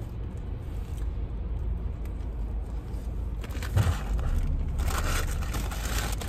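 Low steady rumble inside a car, with a single thump about four seconds in, then a leather jacket rustling as it is moved near the end.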